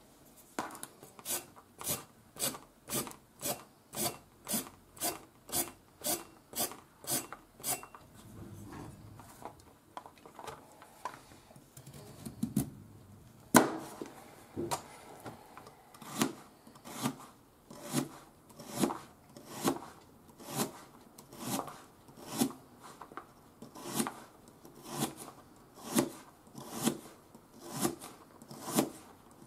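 Kitchen knife cutting a carrot on a cutting board: a quick, even run of chops about two a second, a short lull with softer handling sounds and one sharp knock, then steady chops about one a second as the carrot is diced.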